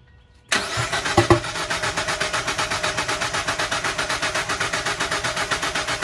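Mazda Miata's four-cylinder engine being turned over on the starter, starting about half a second in: an even, rapid chugging of about seven or eight beats a second that stays at cranking pace and never catches into an idle.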